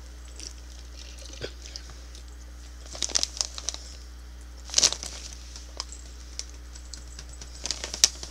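Plastic snack bag of cheese curls crinkling as it is handled and turned over, in short crackly bursts about three seconds in, more strongly near five seconds, and again near the end.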